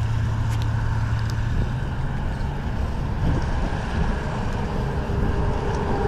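Steady low rumble of nearby road traffic, with an engine hum that fades about two and a half seconds in.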